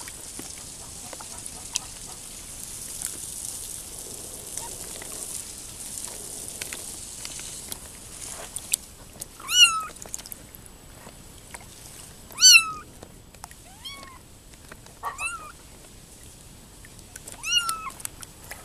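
Young kittens mewing while wading in a shallow plastic-lined pool of water: about five short, high-pitched mews, each rising and falling, in the second half. Before them is a steady hiss of water sloshing.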